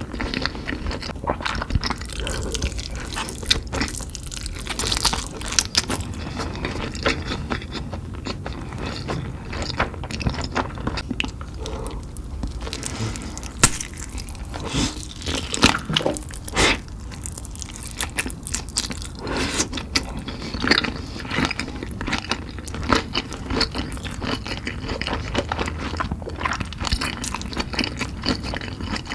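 Close-miked eating of creamy carbonara fire noodles: wet chewing, lip smacks and slurps in an irregular stream of short clicks.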